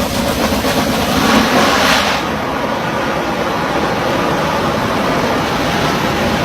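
Drilling rig machinery running: a loud, steady mechanical din. A hissing part of it stops about two seconds in.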